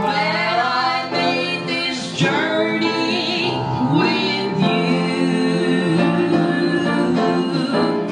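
A woman singing a song into a microphone over instrumental accompaniment.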